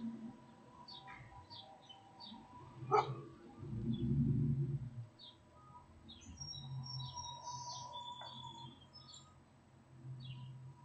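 Small birds chirping in short, repeated calls, with a low rumble of street traffic underneath.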